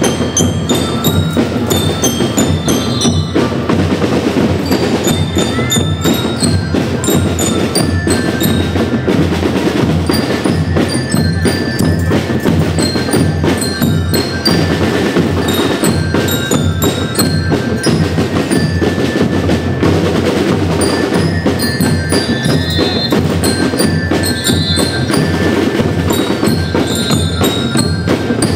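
A school rhythm band playing: many bell lyres ring out a melody of short high notes over continuous snare and bass drum beats.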